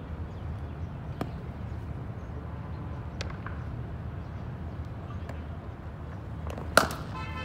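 A cricket bat striking the ball once with a loud, sharp crack near the end, over a steady low background rumble; two much fainter knocks come earlier.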